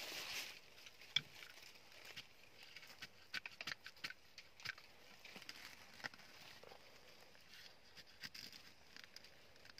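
Faint, scattered light taps, clicks and rustles as a green bamboo tube trap with thin wooden pegs is handled and pressed down into dry leaf litter and soil.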